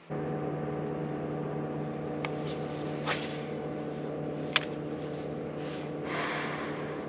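Electric trolling motor on a bass boat humming steadily at one pitch, cutting in suddenly, with a few sharp clicks (the loudest about four and a half seconds in) and a short rush of noise near the end.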